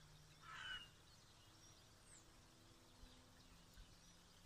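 A crow caws once, harshly, about half a second in, then near silence with faint outdoor background.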